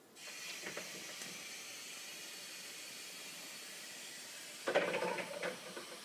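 Electric reach truck's hydraulics hissing steadily as the loaded pallet on its forks is lowered, starting abruptly. A louder clatter of the truck and its load comes about five seconds in.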